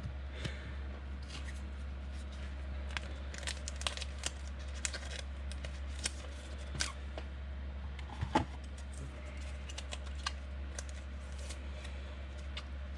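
Trading cards and foil pack wrappers being handled: scattered crinkling, tearing and light clicks of cards sliding, over a steady low hum.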